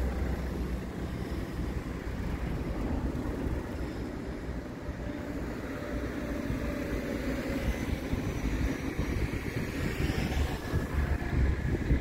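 A motor engine running steadily, with wind buffeting the microphone.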